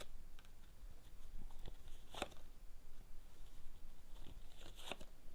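Lenormand cards being handled and laid out on a table: soft rustling with a few sharp clicks, the clearest about two seconds in and near the end.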